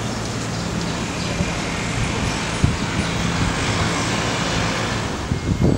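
Street traffic noise: the steady low hum of engines with a vehicle passing, a little louder through the middle.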